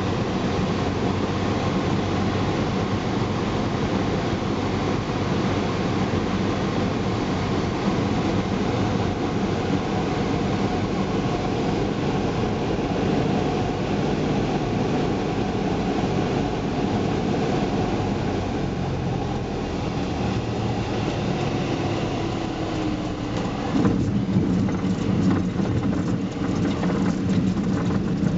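Single-engine light aircraft's piston engine and propeller running steadily, heard from inside the cockpit during the landing approach. About 24 seconds in, the wheels touch down on a grass airstrip and a rough rumbling of bumps joins the engine as the plane rolls out.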